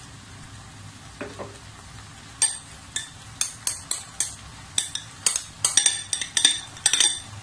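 Wooden spatula stirring a thick, flour-thickened chicken pie filling in a stainless steel pot: after about two seconds a run of sharp scrapes and knocks against the pot, two or three a second.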